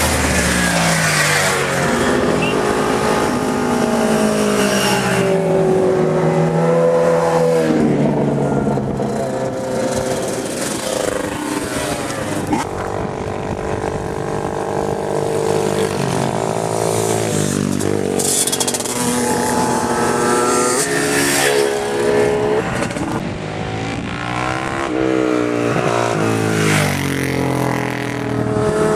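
Motorcycle engines revving hard as bikes climb a hill-climb course, the pitch rising through each gear and dropping at every shift, with several bikes passing one after another.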